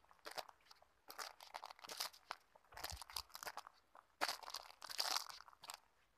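Footsteps crunching on a dry dirt trail strewn with dead leaves and twigs: clusters of crackles at about one step a second, uneven in strength.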